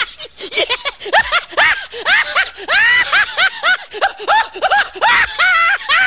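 A meme laugh sound effect: a person laughing hard in a rapid string of high 'ha' bursts, each rising and falling in pitch.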